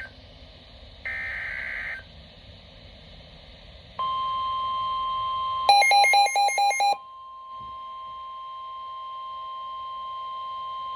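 NOAA Weather Radio emergency alert sequence for a tornado warning: a one-second data burst of digital header tones, then the steady 1050 Hz weather radio warning alarm tone. About six rapid warbling beeps cut in partway through, then the steady alarm tone resumes and holds, slowly getting louder.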